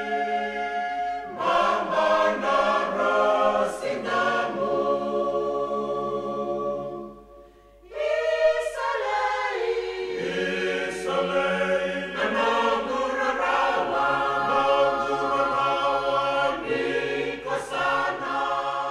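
A choir singing in sustained chords as a music soundtrack, breaking off briefly about seven seconds in and then coming back.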